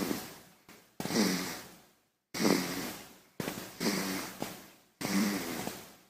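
A baby snoring: a run of short snoring breaths, about one every second and a quarter, each starting abruptly with a low snore tone and fading out over about a second, with brief silences between.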